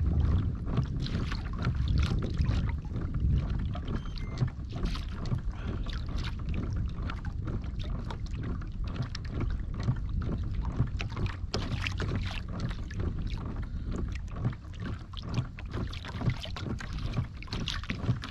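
Water lapping and splashing irregularly against a small fishing boat's hull, over a steady low wind rumble on the microphone.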